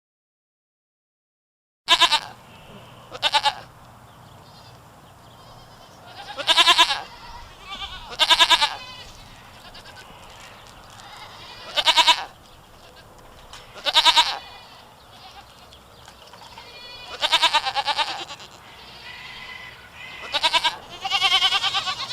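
Goats bleating over and over, about nine separate wavering calls over a steady low background noise. The calls begin after about two seconds of silence.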